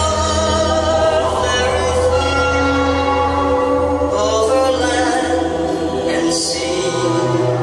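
Slow ambient music of long held, choir-like tones over a sustained low bass drone; the bass note steps higher about seven seconds in.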